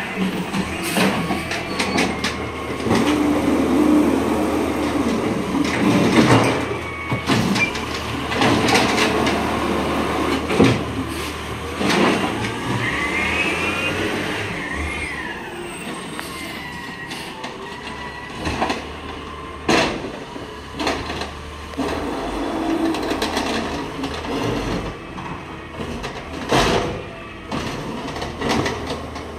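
Peterbilt 320 CNG garbage truck with an Amrep automated side-loader running while collecting carts, its engine humming under the whine of the hydraulic arm. Several sharp bangs ring out as carts are knocked against the hopper while being dumped.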